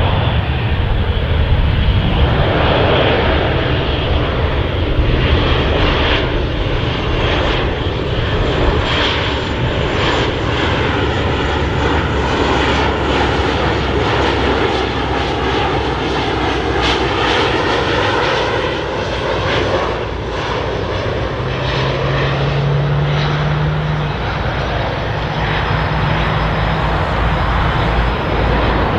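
Four Lycoming ALF 502 turbofan engines of a BAe 146-100F freighter on final approach, running steadily with a jet rumble and whine. The sound takes on a sweeping, phasing quality as the aircraft passes, and a steady low hum joins about three-quarters of the way through.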